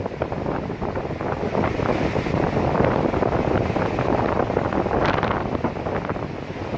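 Strong wind buffeting the microphone over the rush of breaking surf, with a louder burst about five seconds in.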